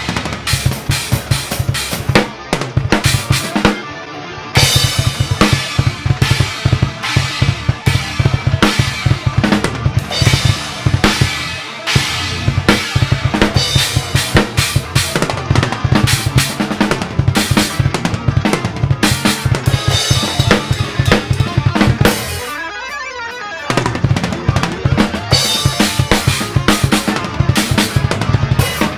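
Acoustic drum kit played hard and fast (bass drum, snare, toms and cymbals) along with a song's backing track. About two-thirds of the way through, the drums stop for about a second while a sweeping sound from the track fills the gap, then the playing resumes.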